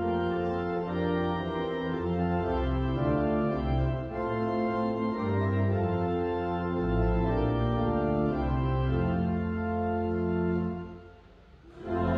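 Church organ playing slow, sustained chords over a deep bass line, with a brief pause near the end.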